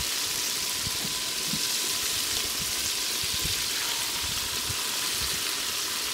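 Hot oil sizzling steadily around chicken wings deep-frying in a large pot, with scattered soft pops from the bubbling oil.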